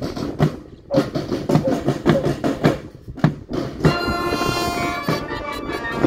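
Marching band's drums beating a steady cadence, about three strokes a second. About four seconds in, the brass section comes in with held notes.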